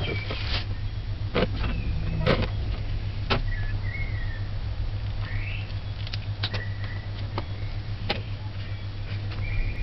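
Flour being sifted through a plastic sieve into a bowl and tipped into a measuring cup, with scattered light taps and knocks of the utensils over a steady low hum.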